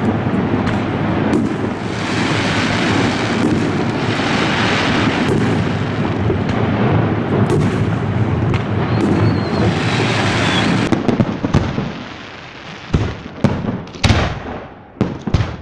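Fireworks going off: for about the first eleven seconds a dense barrage of many overlapping bursts and crackles, then separate sharp bangs with short gaps between them near the end.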